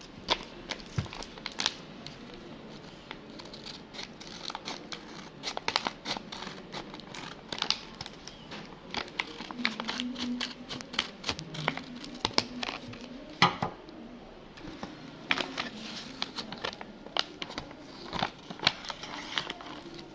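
Handmade paper blind bag crinkling and crackling as it is handled and turned, with irregular sharp crackles throughout and a louder snap about two-thirds of the way in.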